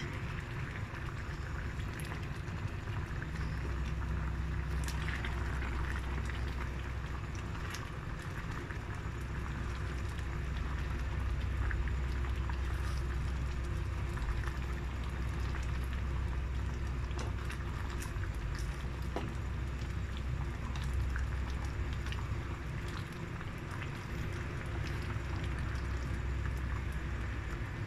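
Mung bean stew boiling in a steel pan, bubbling steadily over a low rumble, with scattered small ticks as a spatula stirs in kai-lan leaves.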